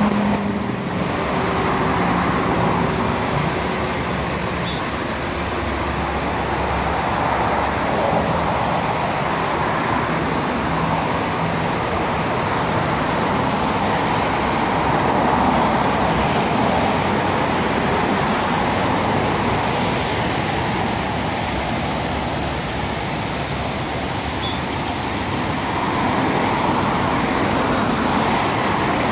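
Steady rush of passing road traffic, with cars swelling past now and then. A few short high chirps come twice, about five seconds in and again near 24 seconds.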